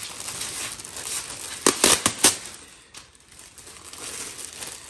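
Thin clear polyethylene window film (Frost King weatherstrip film) crinkling as a large sheet is unfurled and handled, with a quick run of four or five loud, sharp crackles about two seconds in.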